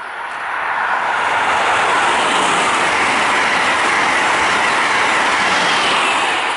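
Amtrak Acela Express trainset passing close by: a loud, steady rush of wheel and rail noise. It builds over the first second and eases off near the end as the power car goes by.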